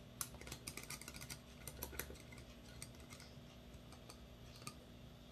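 Faint, irregular light clicks and taps of a screwdriver working inside a Ver3 airsoft gearbox. They come thickly over the first two seconds, then only a few scattered clicks follow.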